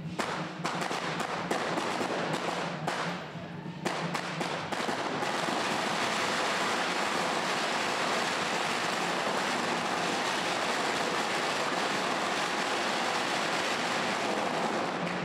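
A long hanging string of firecrackers going off: separate sharp bangs in quick runs for the first few seconds, then a dense, unbroken crackle of rapid explosions that stops near the end.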